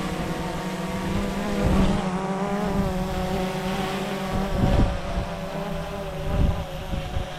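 A motor hums steadily at a fairly even pitch, with wind buffeting the microphone in gusts.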